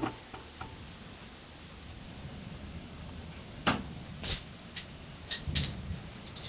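Steady rain falling, with several sharp knocks and clatters in the second half, the loudest around the middle, and a few short high chirps near the end.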